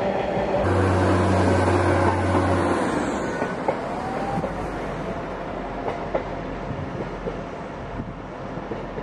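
Arriva Trains Wales Class 175 diesel multiple unit moving away along the track, its engine drone steady for the first couple of seconds, then wheels clicking over rail joints with a brief squeal as the rumble fades.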